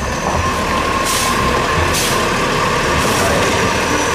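Truck sound, of the kind matched to a garbage truck: a steady engine rumble with short hisses of air brakes or air release about one and two seconds in.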